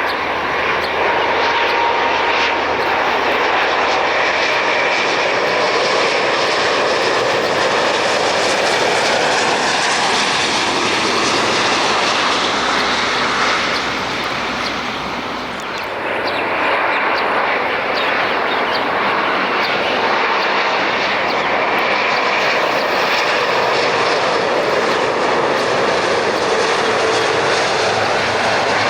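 Jet airliner engines running loudly and steadily as a plane passes during landing, dipping briefly about halfway through before building again.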